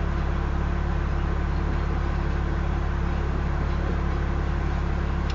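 Covered grain hopper cars of a freight train rolling steadily past at about 21 mph, a continuous low rumble and hum from wheels on rail.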